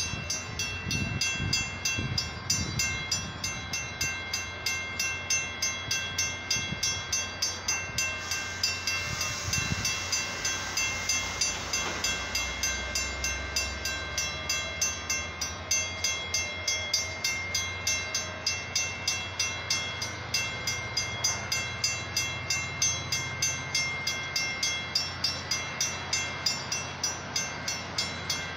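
Railroad grade-crossing warning bell ringing in rapid, even strikes, over the low rumble of a Metra bilevel commuter train rolling through the crossing.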